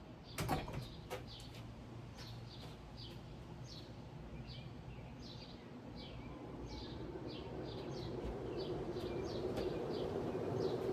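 A 1979 Envirofan 52-inch ceiling fan running with a steady hum that grows louder in the second half. Over it, a bird gives short, high chirps again and again at uneven intervals.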